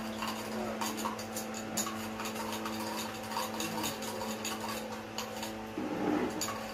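Metal spoon stirring coffee and hot water in a small metal cup, clinking and scraping against the sides several times a second to dissolve the coffee. There is a brief louder rub near the end.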